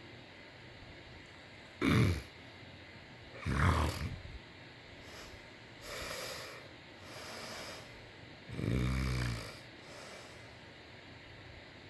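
A sleeper snoring irregularly. There are two short, loud snores about two and three and a half seconds in, softer breaths around six and seven and a half seconds, and a longer, louder rattling snore about nine seconds in.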